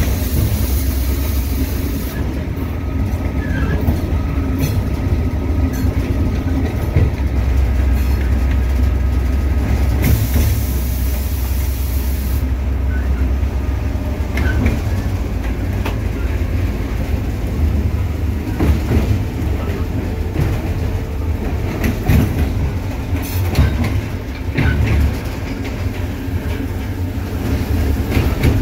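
EMD GL18B locomotive's eight-cylinder EMD 645 two-stroke diesel running steadily, heard from inside the cab as it rolls along, with the wheels knocking irregularly over rail joints and switches. A hiss rises for a couple of seconds about ten seconds in.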